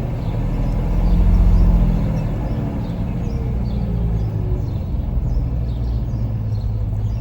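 Jeep engine running steadily, rising briefly in speed and settling back about a second in, with a fan-like whirring the owner likens to the noise he heard from the alternator, whose fault was a bad bearing or diode.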